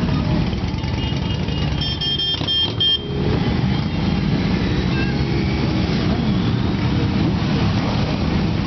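Many motorcycles riding slowly past in a line, their engines running together in a dense, continuous low sound. A short, pulsing high-pitched beep sounds about two seconds in.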